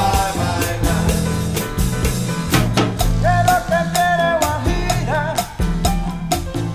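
Background music: an upbeat song with a steady drum beat, bass and a singing voice.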